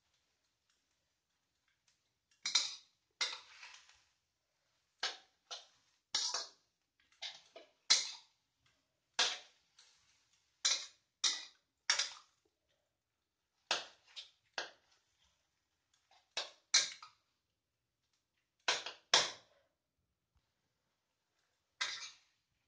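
A steel spatula scraping and tossing water spinach around a stainless steel wok during stir-frying. There are about twenty short, irregular scrapes, starting a couple of seconds in, with quiet gaps between them.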